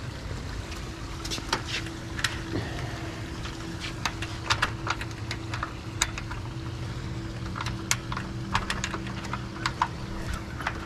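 Pool-cage screen door latch clicking and rattling many times as it is worked by hand, with the door sticking shut, over a steady low hum.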